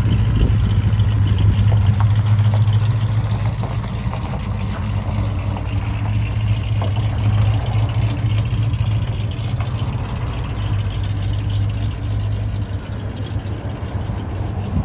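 1968 Dodge Charger's V8 engine running, a steady low exhaust drone that eases off about eleven seconds in. The clamped X-pipe exhaust has been freshly welded up to cure its leaks.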